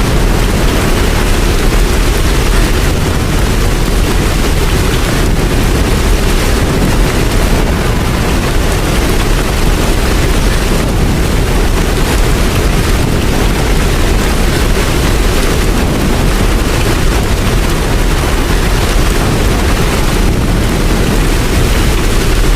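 Steady rain falling, an even, dense hiss with a strong low rumble underneath.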